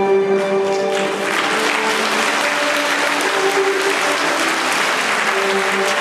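Audience applauding, the clapping swelling in about a second in over music that keeps playing with held tones.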